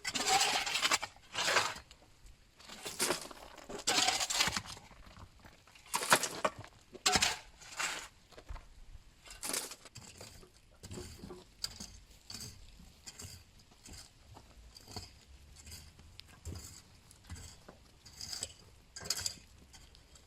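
Demolition rubble of broken concrete and stone being cleared by hand: irregular scrapes and crunches with clinks of stone on stone. The strokes are loudest in the first half and turn into lighter clicks and clinks later.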